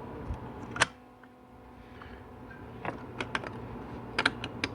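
Sharp metallic clicks and taps of 4L80E transmission clutch parts being fitted into the direct clutch housing, a single click about a second in, then bunches of quick clicks near the middle and end.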